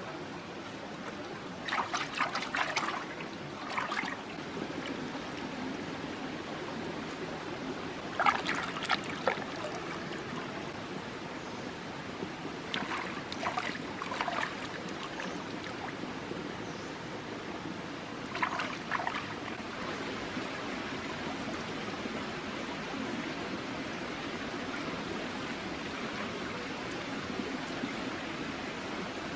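Shallow stream trickling steadily over stones, with five short spells of splashing in the first twenty seconds or so as chicken wings are rinsed by hand in the water.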